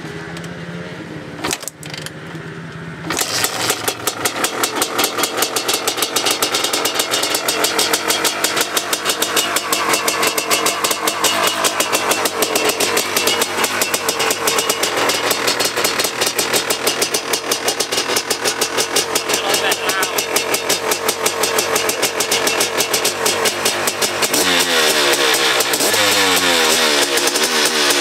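Honda CR500 single-cylinder two-stroke dirt bike engine being kick-started after sitting unused for a long time. After a few kicks it catches about three seconds in and runs with a rapid, crackling firing. Near the end its pitch rises and falls as it is revved.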